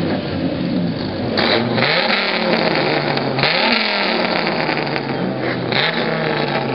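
A pickup truck's engine revved hard three times through its exhaust, about two seconds apart, the pitch climbing quickly each time and then sinking back toward idle.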